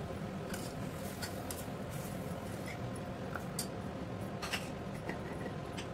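Steel spoon stirring mutton and spice powders in a pressure cooker, with a handful of scattered scrapes and clicks of the spoon against the pot over a steady faint hiss.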